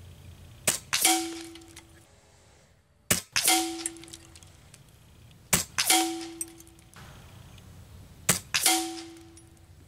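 Four shots from a .22 Air Venturi Avenger regulated PCP air rifle, about two and a half seconds apart. Each sharp report is followed about a third of a second later by a ringing metallic clang that dies away over about a second.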